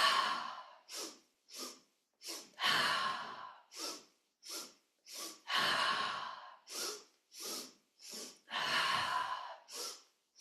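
A person doing a yoga breathing exercise: three quick sniffing inhales through the nose, then a long forceful "ha" exhale through the mouth. The pattern repeats about every three seconds, four times.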